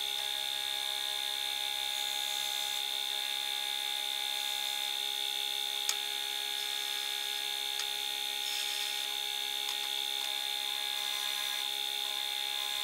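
Disc sander running steadily with a high whine, its coarse-grit disc sanding the end grain at a wooden tray's corner as the tray is touched against it. A single sharp click about six seconds in.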